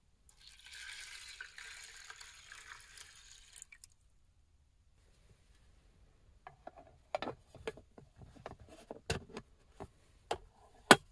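Water being poured into a container for about three seconds, then a run of light clicks and knocks as cooking gear is handled, the loudest knock near the end.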